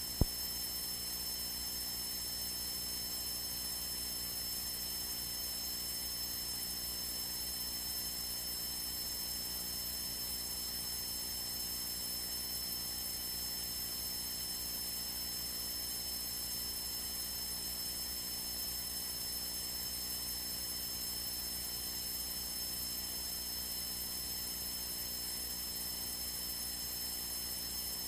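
Steady electrical hum and hiss of a light aircraft's radio/intercom audio feed with no transmission on it, carrying a constant thin high-pitched whine. A single short click comes just after the start, as the previous transmission ends.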